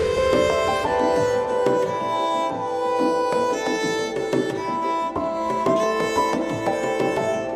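Background music: a melodic piece with sustained string-like notes over a steady percussion pattern, starting abruptly as the previous electronic track cuts off.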